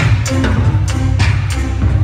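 Loud music with a heavy bass line and a steady beat of sharp drum hits.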